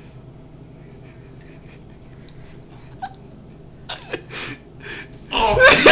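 A man coughing and gagging after swallowing a tablespoon of dry ground cinnamon: a few short coughs about four seconds in, then a loud, strained coughing fit near the end as the powder catches in his throat.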